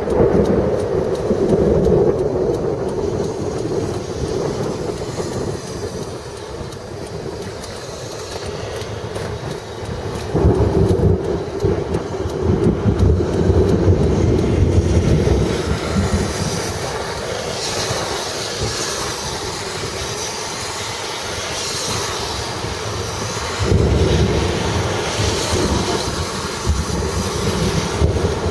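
Storm wind buffeting the microphone with a low, rough rumble. It surges louder about ten seconds in and again near the end.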